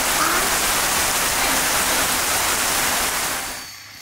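Heavy rain pouring down in a steady, dense hiss that fades away near the end.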